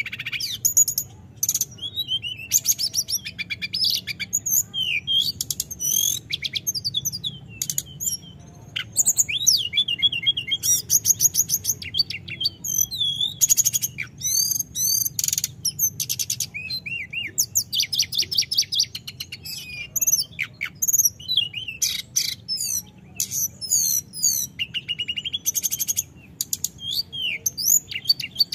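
Hill blue flycatcher singing on and on, long varied phrases of fast trills and gliding whistled notes strung together with only short breaks.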